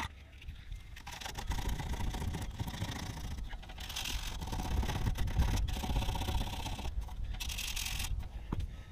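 Scraping and rustling of heavy insulated cables being handled and pushed against the underside of a trailer frame, louder in stretches around the middle and near the end, over a steady low rumble.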